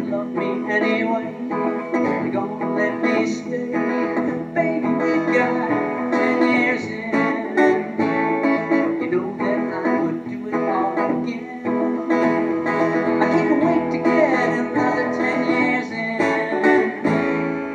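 Solo acoustic guitar strummed and picked through an instrumental closing passage of a folk song; the playing ends a little before the close.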